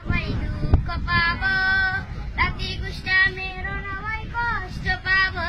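A boy singing unaccompanied in a high voice, holding wavering notes, over a steady low background noise. A single sharp knock sounds near the start.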